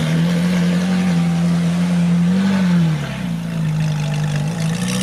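Ferrari 458 Italia's V8 engine running with a steady drone; its pitch lifts slightly about two and a half seconds in, then settles lower.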